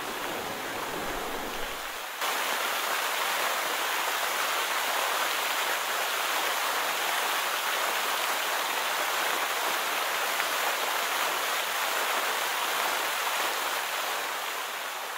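Upper Yosemite Fall: a steady rushing hiss of falling water. About two seconds in it steps up louder and brighter, and it begins to fade near the end.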